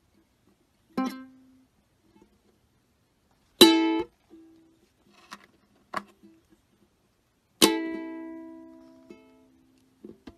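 Ukulele strings sounded by a cat rubbing its face across them: four separate strums with gaps between. The second and fourth strums are the loudest, and the fourth rings on for a couple of seconds.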